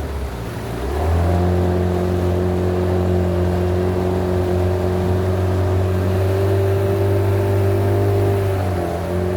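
A boat's motor running steadily under way. Its note drops for a moment at the start and picks back up within about a second, then dips slightly again near the end.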